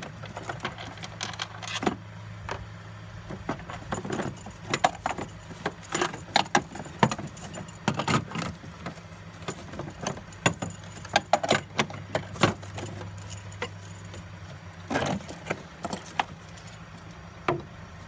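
Skoda Fabia's hard plastic battery tray and trim cover being worked loose and lifted out of the engine bay: repeated clicks, knocks and rattles of plastic against plastic and metal. A low steady hum runs underneath and fades out about three-quarters of the way through.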